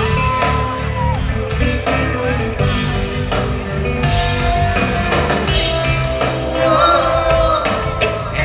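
Rock band playing live through a loud amplified PA, with singing over electric guitar, bass and drums, heard from the crowd through a phone's microphone.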